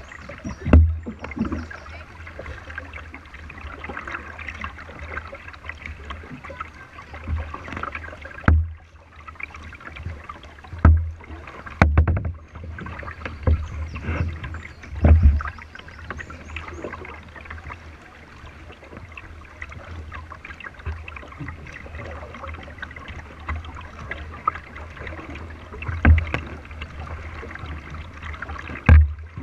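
Plastic kayak under way on a river: water splashing and trickling along the hull as it is paddled, with irregular dull thumps on the hull, several close together in the middle and two more near the end.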